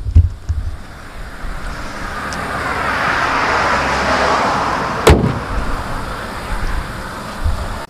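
The bonnet of a Volkswagen Passat Variant shut with one solid thud about five seconds in, over a rushing noise that swells and fades.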